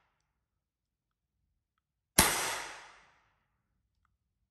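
Umarex Glock 17 Gen 5 CO2 pellet pistol with blowback firing one shot about two seconds in, a sharp crack whose echo dies away over about a second. The next shot comes right at the end.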